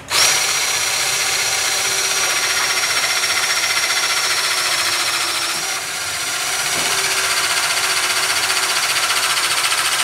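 Cordless 18 V electro-hydraulic self-piercing rivet gun running its motor-driven hydraulic pump while it sets rivets in aluminium plates. It gives a steady high whine with a fast, even pulsing, starts suddenly and dips briefly about six seconds in.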